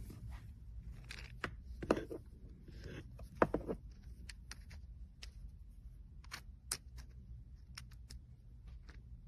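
Handling noise: irregular sharp clicks and light knocks, the loudest about two seconds and three and a half seconds in, over a steady low hum.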